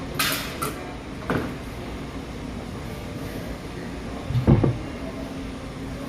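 Tools and engine parts being handled during work on an engine: two sharp clicks right at the start, a knock just over a second in, and a louder, deeper thump about four and a half seconds in, over a steady low hum.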